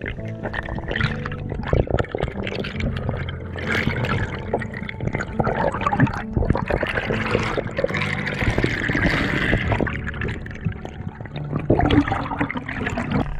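Water rushing and bubbling around an action camera held underwater, a busy, crackling wash of noise that runs on without a break.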